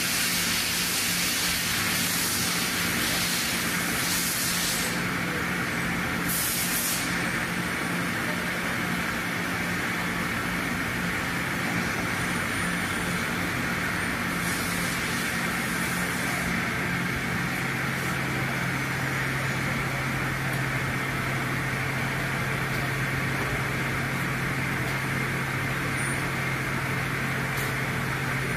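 Machine-shop noise from a CNC machining cell: a steady machine hum and hiss, with several short hissing bursts in the first half, like compressed-air or coolant blasts. The hum drops to a lower pitch a little past halfway.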